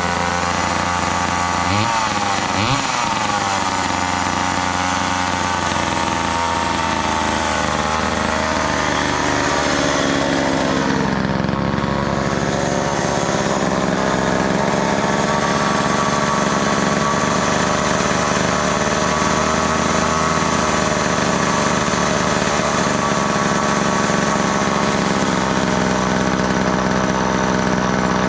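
Old two-stroke chainsaw engine running, its speed wandering up and down for the first ten seconds or so, then settling into a steady run.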